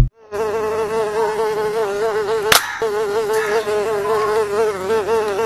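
Housefly buzzing: a steady, slightly wavering drone that starts just after the opening moment, with one sharp click about two and a half seconds in.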